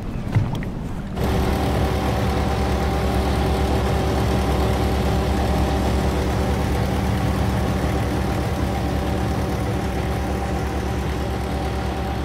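A fishing boat's motor running steadily. It comes in suddenly about a second in, after a moment of wind and water noise.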